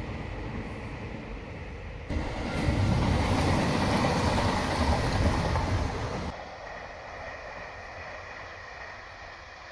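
Madrid Metro 6000-series electric train passing on the line: steady rumble of wheels on rail, much louder for about four seconds in the middle as a train goes close by, then a quieter, more distant train running past with a faint steady whine.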